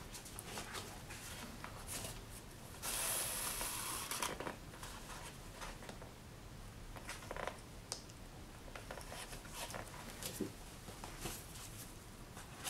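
Linen bookbinding thread drawn through the fold of a signature of heavy paper while sewing, with one longer pull lasting about a second and a half about three seconds in, among soft paper rustles and small handling clicks.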